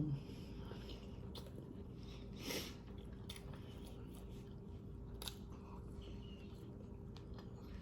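Close-miked chewing of a crispy spicy chicken sandwich: small wet mouth clicks and smacks, with one louder crunchy bite about two and a half seconds in. A steady low hum sits underneath.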